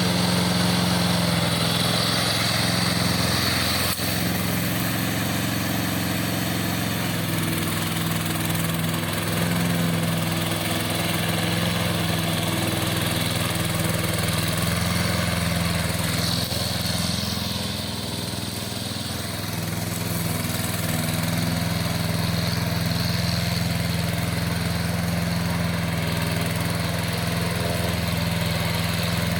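Engine of a crawler remote-control lawn mower running steadily with a constant hum, dropping a little in level about two-thirds of the way through before picking up again.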